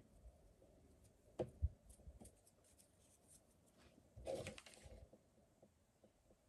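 Near silence with faint handling noises as crocheted cotton petals are pressed and moved by hand: two small knocks about a second and a half in, and a short soft rustle about four seconds in.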